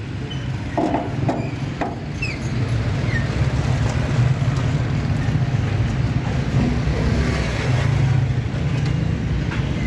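Steady low rumble of road traffic, with a few short clicks and knocks about a second in as the old car's bonnet is unlatched and lifted.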